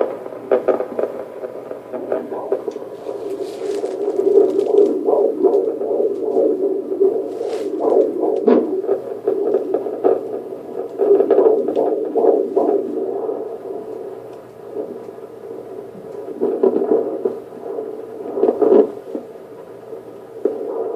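A fetal heartbeat heard through a Doppler ultrasound probe: a fast, rhythmic whooshing pulse that grows louder and fainter by turns.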